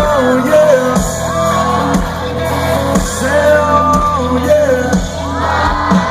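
Live country band playing, with a lead vocal melody over bass and a drum beat about once a second.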